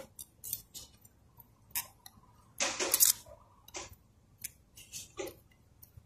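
Steel feeler gauge clicking and scraping against the camshaft and valve gear as it is worked in to check valve clearance. The light metallic clicks are irregular, with a couple of short scrapes about two to three seconds in.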